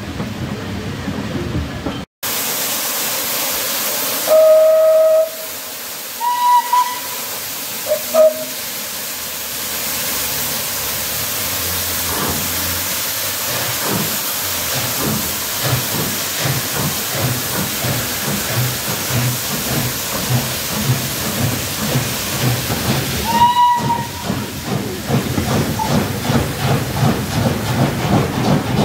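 Steam tank locomotives hissing steam and sounding several short whistle blasts in the first few seconds, with one more about two-thirds of the way through. They then pull the train away with a rhythmic exhaust beat that quickens, and the coaches clatter past.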